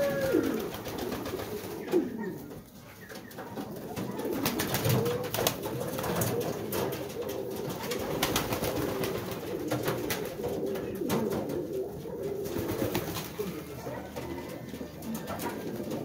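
A flock of domestic pigeons cooing, many overlapping low, wavering calls, with scattered short taps and clicks throughout.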